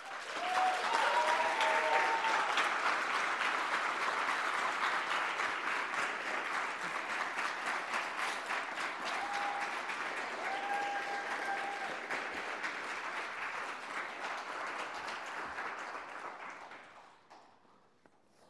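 Large audience applauding, a sustained ovation that dies away about seventeen seconds in.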